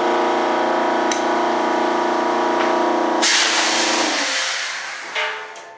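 Shop air compressor motor running steadily, then shutting off a little over three seconds in with a loud hiss of released air that fades over about a second. A short hiss follows near the end.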